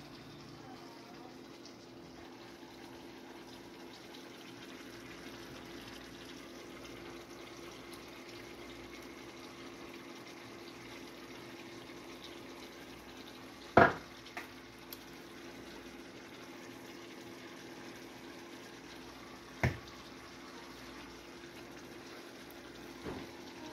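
Fish steaks simmering in melted butter in a frying pan: a steady, low sizzle with a faint hum beneath it. Two sharp clinks of a utensil against the pan cut through, about 14 and 20 seconds in, with a few lighter taps after.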